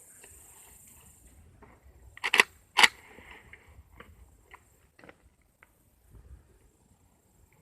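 Two sharp, loud clacks about half a second apart, then a scattering of fainter clicks and knocks.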